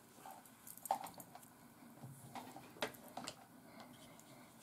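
Faint, scattered small clicks and taps from handling a soldering iron and wires, with the sharpest about a second in and a few more near three seconds.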